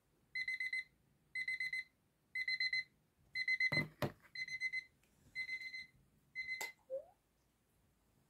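Bedside alarm clock beeping: high-pitched bursts of rapid pips, about one burst a second. A hand knocks against it a couple of times about four seconds in, and a click near the end silences it.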